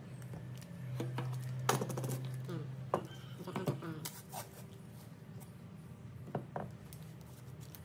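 Scattered light clicks and knocks as a knife, a utility cutter and a roll of tape are handled and set down on a plastic cutting mat.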